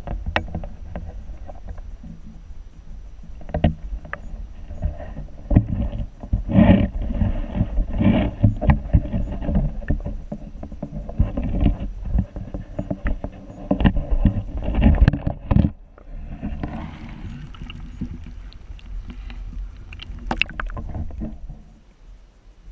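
Muffled underwater sound picked up by an action camera in its waterproof housing: a low rumble of moving water with irregular knocks and clicks as the housing is bumped and shifted. It settles down after about 16 seconds and drops off near the end.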